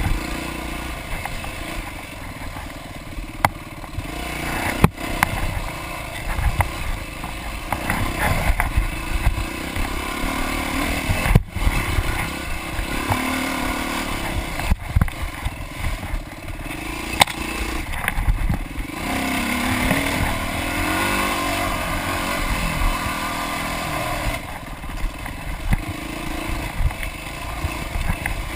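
Dirt bike engine being ridden hard on a rough wooded trail, its pitch repeatedly rising and falling as the throttle opens and closes. Sharp knocks and clatter come every few seconds as the bike goes over bumps.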